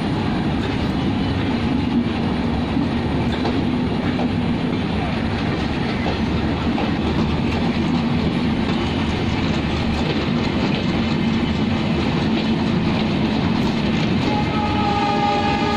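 Bangladesh Railway intercity passenger coaches passing at speed close by, with a loud, steady noise of wheels running over the rails and their joints. A steady high tone joins near the end.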